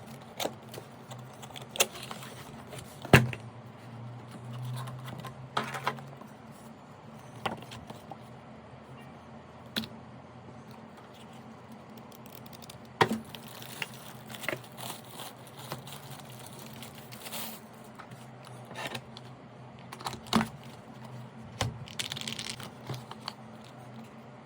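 Handling noise as a mechanical keyboard and its packaging are unboxed: irregular clicks and knocks with short bursts of rustling, the sharpest knock about three seconds in. A low steady hum runs underneath.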